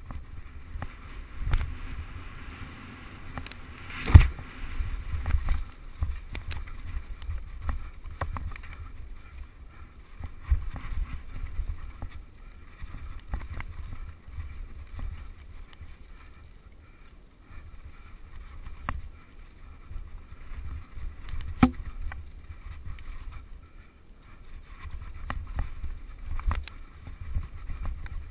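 Mountain bike rolling down a rough forest trail: a steady low rumble with frequent rattles and knocks as the bike goes over roots and bumps. The hardest knock comes about four seconds in, and another strong one a little past twenty seconds.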